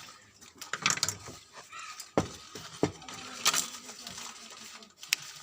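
Small tools and phone parts clicking and tapping while a smartphone is worked on at a repair bench: a handful of sharp knocks spread over a few seconds.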